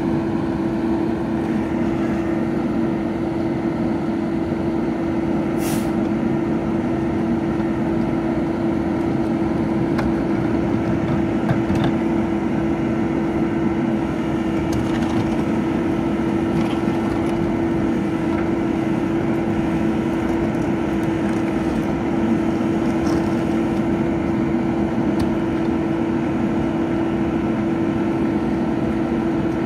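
Rear-loading garbage truck running steadily at the curb, its engine giving a constant, even hum, with a sharp knock about six seconds in and a few fainter knocks as trash carts are handled and tipped into the rear hopper.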